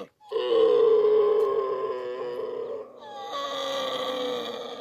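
A camel calling with long, drawn-out moaning bellows: two calls in turn, each a couple of seconds long, the pitch sagging slightly toward the end of each.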